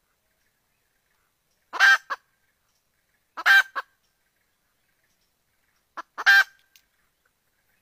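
Red junglefowl hen calling: three short, loud calls spaced about one and a half to three seconds apart, each followed by a quick, softer note. It is the wild hen's call that draws cocks to her.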